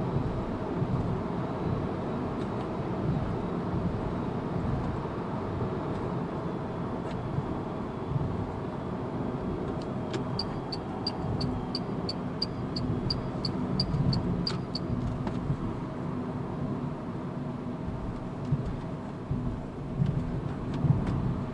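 Steady road and tyre noise with wind rushing past, heard inside the cabin of a Renault Zoe electric car driving at highway speed, with no engine note. About halfway through, a run of about a dozen quick, even ticks lasts some four seconds.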